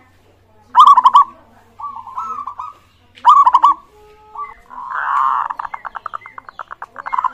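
Zebra doves (perkutut) cooing: two short staccato coo phrases, each trailing off in a softer trill, then from about 5 s a long fast run of repeated coo notes.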